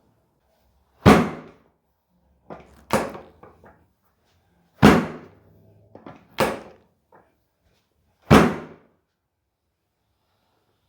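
Five loud, sharp thumps, each dying away quickly, spaced about one and a half to two seconds apart, with a few fainter knocks between them.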